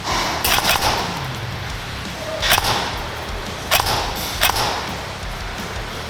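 Airsoft guns firing: a quick cluster of three sharp cracks in the first second, then single shots about a second apart.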